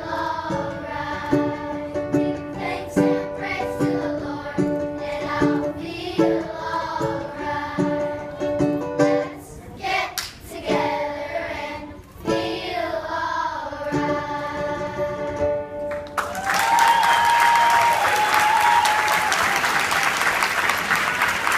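Children's choir singing with a strummed acoustic guitar. About 16 seconds in the song ends and the audience breaks into loud applause, with a cheer or whoop over it.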